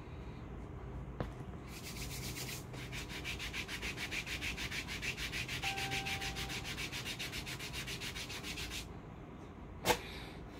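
A hand rubbing quickly back and forth over a hair-removal paper strip pressed onto waxed skin of the shin, in fast, even strokes, to set the strip. Near the end, one short sharp rip as the strip is pulled off the leg.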